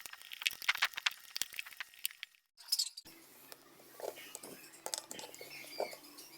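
Rapid clicks and clinks of small hard objects. After a brief dropout about two and a half seconds in, a steady low hum carries on with scattered softer clicks.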